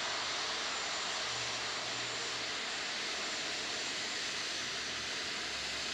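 Jet engines of the Airbus A380 prototype running steadily as the airliner taxis past, a constant even rushing roar.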